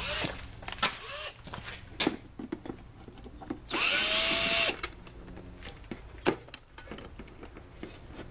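Cordless drill driver spinning up with a rising whine and running for about a second, backing a screw out of a generator's sheet-metal control panel. Several sharp clicks and knocks come before and after it.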